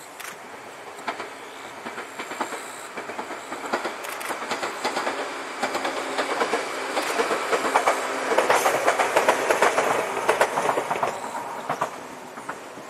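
JR 115-series electric multiple unit passing, its wheels clicking rhythmically over the rail joints. The sound builds to its loudest about eight to ten seconds in, then fades toward the end.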